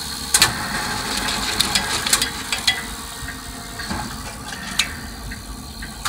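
ATM cash dispenser running, whirring with several sharp clicks as it counts out banknotes and pushes them out through the cash slot.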